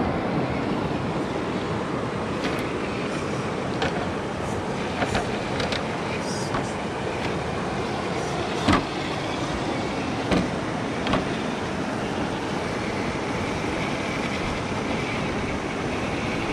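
1/10-scale electric RC rock crawler (Axial SCX10 III Base Camp) driving over rock: a steady running noise with a few sharp knocks as the truck works over the rocks, the loudest about halfway through.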